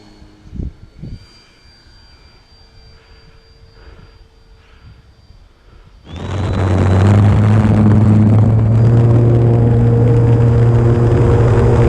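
Electric RC plane (E-flite Draco) at low throttle with a thin steady motor whine and two thumps about half a second and a second in. About six seconds in the throttle is opened and the propeller goes to a loud, steady full-power drone with rushing noise for the takeoff run.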